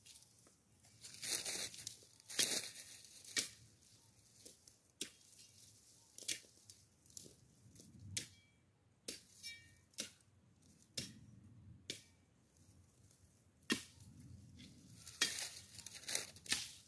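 Machete strokes chopping into dry brush and grass, a sharp hit about once a second, several followed by the crackle and tearing of dry stems and leaves being cut and dragged.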